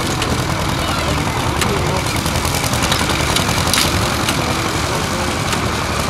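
Vintage McCormick baler at work, its own engine and the towing Massey tractor running steadily, with a few sharp knocks from the machinery.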